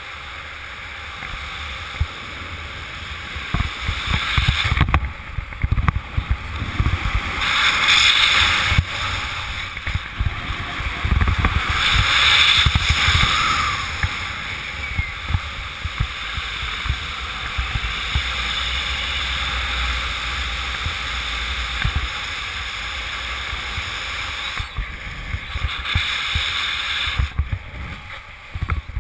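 Wind rushing and buffeting over the camera microphone in speed-wing flight, a steady noise with a heavy low end that swells louder twice, about 8 and 12 seconds in, and eases off near the end.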